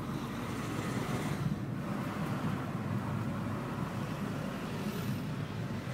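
A steady low noise without any clear tone or rhythm.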